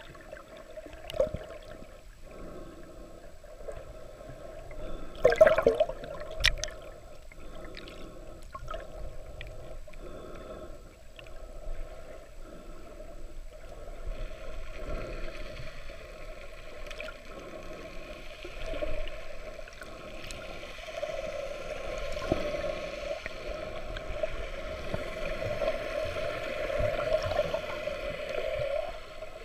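Muffled underwater water noise picked up by a camera in a waterproof housing below the surface. A few sharp knocks and bumps come about five to six and a half seconds in, and a hiss thickens from about halfway through.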